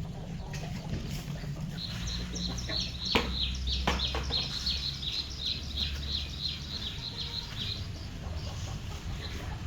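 Chickens feeding, one bird giving a rapid run of high, falling peeps, about four a second, for several seconds, with two sharp knocks near the start of the run.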